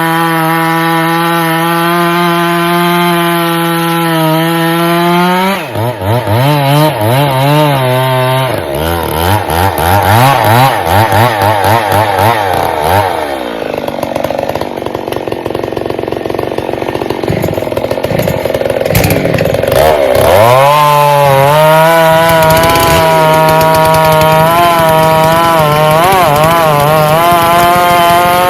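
Chainsaw engine running at high revs. A few seconds in, its pitch starts to waver and sag as it bogs down cutting through wood. It dips sharply about twenty seconds in, then revs back up and runs high and fairly steady.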